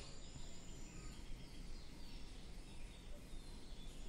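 Faint, steady outdoor background noise with no distinct events.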